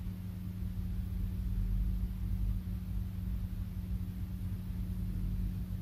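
Room tone: a steady low hum with a faintly fluctuating rumble beneath it, and no distinct event.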